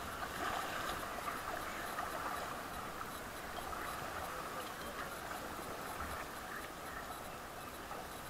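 Rafting paddles stroking through river water, with water splashing and rushing along an inflatable raft as the crew paddles.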